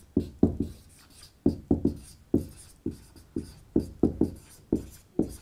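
Marker pen writing on a whiteboard: a quick run of short, uneven strokes and taps as letters are written.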